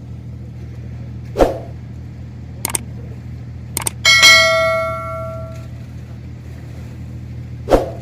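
Steady low drone of a ferry's engines, broken by two dull thumps, a few sharp clicks, and one loud ringing metallic clang about four seconds in that dies away over a second or so.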